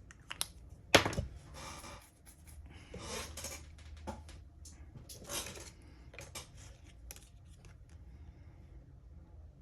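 Small plastic model parts being handled on a workbench: a sharp click about a second in, then several short scraping and rubbing noises.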